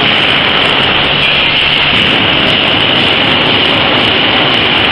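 Corn-filling machine running steadily: a loud, even mechanical noise with a strong hiss.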